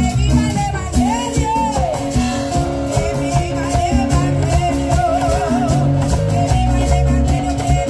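Live Pentecostal coro played by a band: a woman sings the lead into a microphone, with wavering held notes, over drum kit, congas, electric guitar and keyboard in a steady Latin-style rhythm, amplified through PA speakers.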